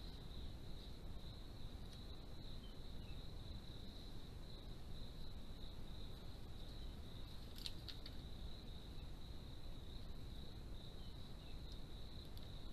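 Crickets trilling in a steady high tone over a low background hiss, with a brief sharp click about two-thirds of the way through.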